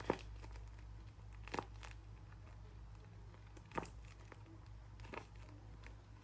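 Plastic blind-bag packaging crinkling in a few short, scattered bursts as a squishy toy is handled, over a low steady hum.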